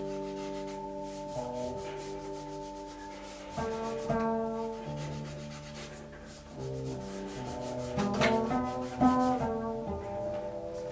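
Electric upright bass and electronics playing slow, sustained, overlapping tones that shift in pitch every second or two, over a scratchy rubbing texture. There are a few sharp accents, two of them close together about eight and nine seconds in.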